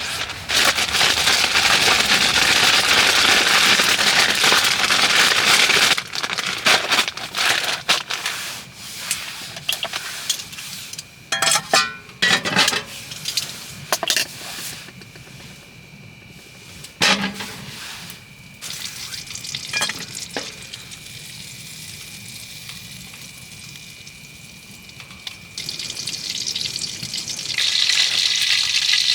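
Food sizzling loudly in a pan for the first six seconds, then a string of clinks and knocks from utensils on cookware over a quieter sizzle. The loud sizzling returns near the end.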